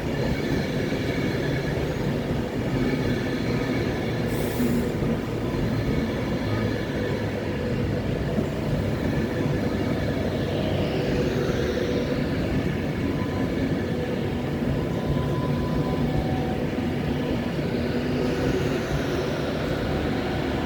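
Passenger train running slowly alongside the platform: a steady rumble and hum, with faint high wheel squeals about ten seconds in and again near the end.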